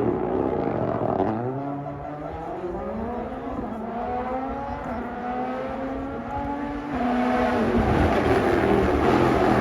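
A rally car's turbocharged engine passes close at the start, then accelerates away up through the gears, its pitch climbing and dropping back at each shift. About seven seconds in the engine sound grows louder again as a car comes nearer.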